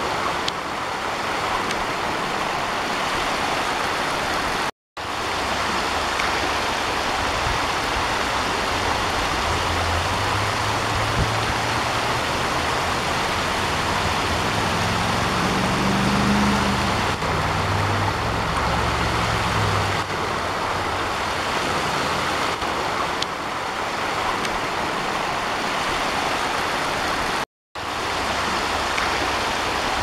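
Steady rush of runoff water from a small waterfall cascading down a gravel embankment and splashing over rocks. A low droning hum sits under it for several seconds in the middle, and the sound cuts out for a moment twice.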